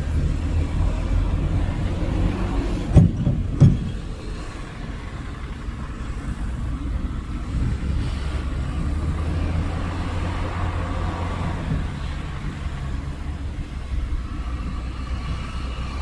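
Heavy diesel engine of earthmoving machinery running steadily, with two sharp knocks about three seconds in, half a second apart.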